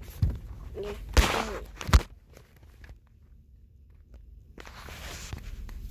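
Handling noise from a hand-held phone: three dull knocks in the first two seconds, then quiet, then a soft hiss in the last second or so.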